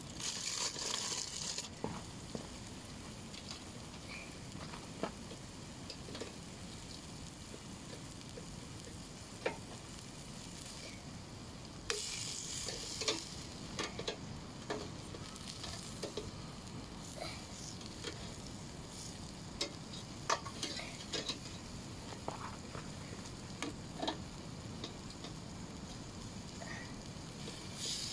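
Marinated steaks sizzling on a charcoal grill grate, with sharp clicks of metal tongs against the grate and meat as the steaks are turned. Two louder rushes of hiss come near the start and about halfway through.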